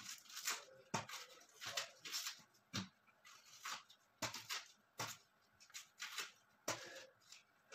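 Onions being handled at a kitchen counter: irregular sharp knocks and short papery rustles, roughly one a second.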